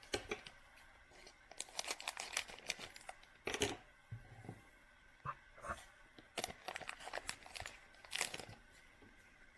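Football trading cards being handled and slid against one another: a run of short, dry rustles and scrapes coming in uneven bunches.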